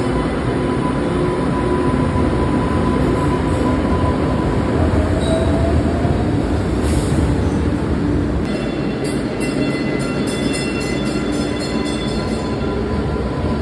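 MBTA Green Line light-rail cars running through an underground station: a steady rumble of wheels on rail with a motor whine that rises about five seconds in. From about eight and a half seconds a high, pulsing ring joins in for about four seconds.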